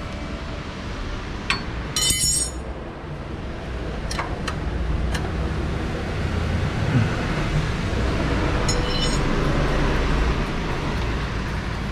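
Metal hand tools clinking and tapping against the engine's belt tensioner and brackets: a few sharp clicks and two ringing metallic chinks, about two seconds in and near nine seconds, over a steady low hum.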